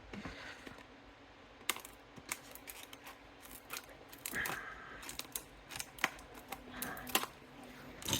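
Irregular small clicks and short plastic crackles as scissors cut a lock's packaging open.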